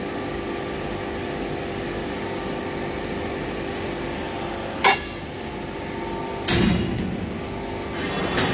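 Steady hum with a held tone from a 1993 Mazak Super Turbo X 510 Hi-Pro laser cutting machine standing running. Over the hum come metallic clanks of 2 mm steel sheet and cut parts being handled: a sharp clink about five seconds in, a louder ringing clank a second and a half later, and a lighter clink near the end.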